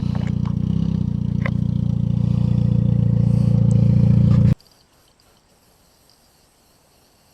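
Car engine running loudly and getting a little louder, with a few clicks over it, then cutting off abruptly about four and a half seconds in, leaving only faint background noise.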